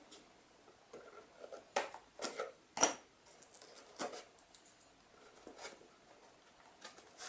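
Scissors snipping off small bits of masking tape: a handful of short, separate snips and clicks, the sharpest a little under three seconds in. Fainter clicks of fingers handling and pressing down the tape on the paper and egg-box card follow.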